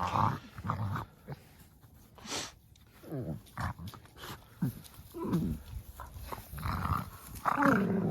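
A dog growling and giving short calls while playing, several of them falling in pitch, with a louder stretch near the end.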